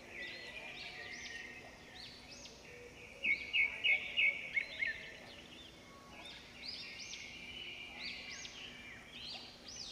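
Small birds chirping in short, rising-and-falling notes, with a louder run of about five quick notes a few seconds in.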